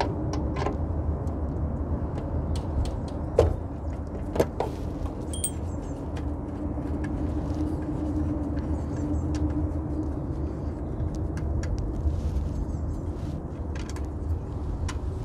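Sharp clicks and knocks of hands working cables and plastic trim behind the pollen filter in a car's scuttle tray, loudest about three and a half seconds in, over a steady low rumble.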